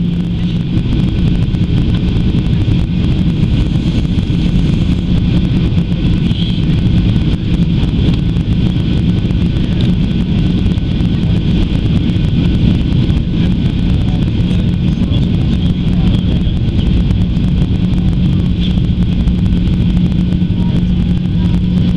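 Cabin noise heard from a window seat over the wing of a Boeing 737-800 during descent: a steady rush of airflow and the CFM56-7B engines running. A steady hum fades about a second in and comes back in the last few seconds.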